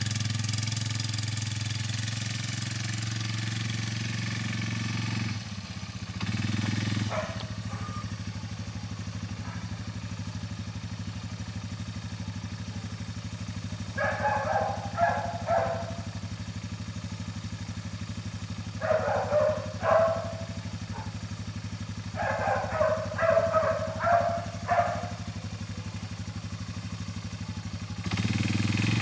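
ATV (quad bike) engine running, dipping and picking up briefly about five seconds in, then idling steadily before picking up again near the end. A few short vocal sounds come over the idle in the middle stretch.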